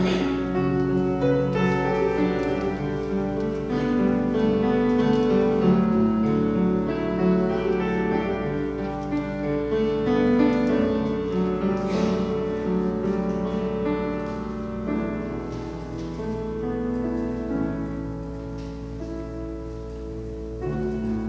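Piano playing slow, sustained chords as reflective music, getting softer near the end, over a steady low hum.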